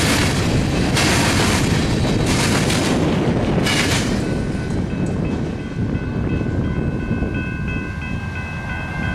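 Freight train rolling past close by: a loud, steady rumble with surging rushes in the first few seconds. From about five seconds in, a steady high-pitched ringing tone joins the rumble.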